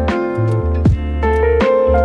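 Background music: keyboard notes over a sustained bass line, with sharp percussive hits.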